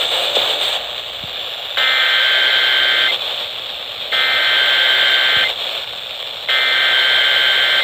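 Emergency Alert System SAME header played over the radio: three buzzy digital data bursts, each about a second and a half long, with about a second of radio hiss between them. They announce the start of an alert, here a severe thunderstorm warning.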